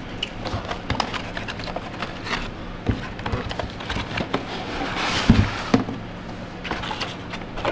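Molded pulp packing inserts and cardboard being handled in a box: a string of scraping, rustling and small knocks as the packing is pulled out, with a louder rustle and a dull thump about five seconds in.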